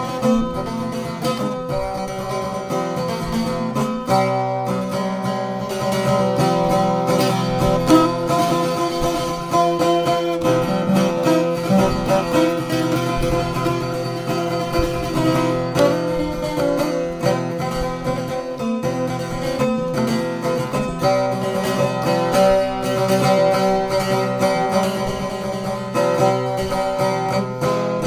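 A polusaz, a Bosnian long-necked lute, played solo with fast strumming, steady drone notes ringing under the melody.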